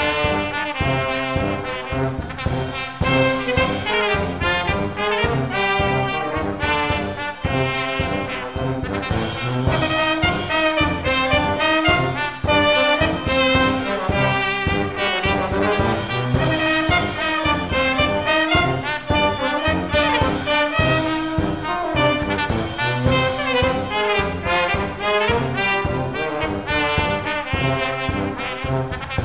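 Upbeat brass band music with a steady beat.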